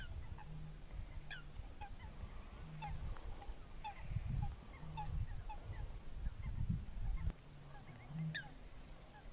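Birds calling again and again in short calls that fall in pitch, over a low, gusty rumble of wind on the microphone.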